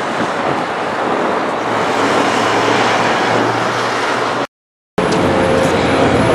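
Steady city street noise, with traffic and wind on the microphone. The sound cuts out completely for about half a second around four and a half seconds in, then comes back as similar outdoor noise.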